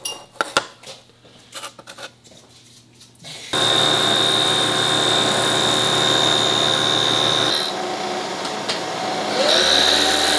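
A few light clicks and taps of handling, then a vertical knee milling machine starts sounding suddenly about three and a half seconds in, its end mill cutting metal with a steady high whine over a low hum. The sound drops back a little about halfway through and swells again near the end.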